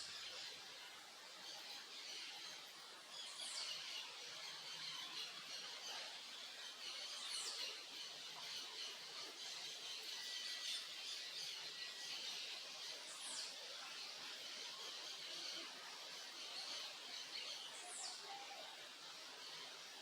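Backyard birds chirping in a faint, continuous chorus. A high, thin whistled call slides downward and repeats about every four seconds.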